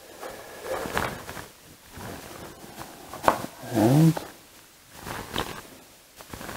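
Handling noise of a cable and a tablet on a table, with a few sharp clicks as a micro-USB plug is pushed into a tablet charging dock and the tablet is set onto it. Around the middle comes a short hummed sound from a person's voice, the loudest part.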